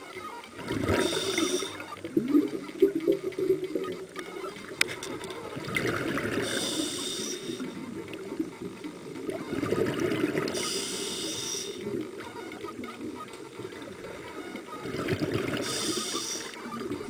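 A scuba diver breathing through a regulator underwater: four breaths about four to five seconds apart, each with a hiss and a gush of bubbling exhaust.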